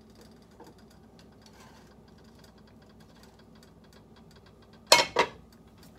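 Two sharp clinks of kitchen cookware knocking together near the end, a quarter second apart, over faint light ticking.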